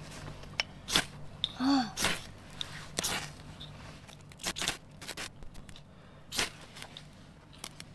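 Dry kindling of twigs and leaves crunching and snapping in irregular sharp cracks, about seven in all, as it is handled for a campfire.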